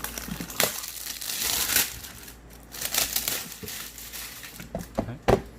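Plastic shrink-wrap crinkling and crackling as it is pulled and torn off a plastic toolbox, in irregular rustles with a few sharp crackles near the end.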